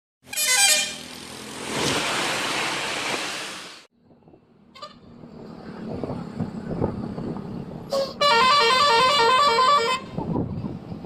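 Bus 'telolet' musical horn playing a quick tune of rapidly alternating notes for about two seconds near the end. Earlier, a loud noisy rush lasts about three seconds and cuts off abruptly.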